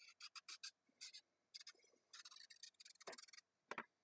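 A small kitchen knife shaving peel off a raw carrot: a run of short, faint, irregular scraping strokes, with two light knocks a little after three seconds in.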